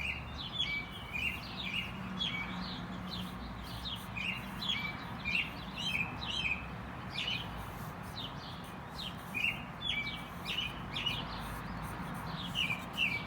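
Songbirds chirping and singing: quick high notes, several a second, over a faint low steady hum.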